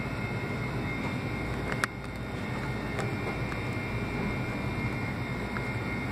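Steady droning hum of a grocery store's background machinery, with a faint high whine over it and a few light clicks, one sharp click about two seconds in.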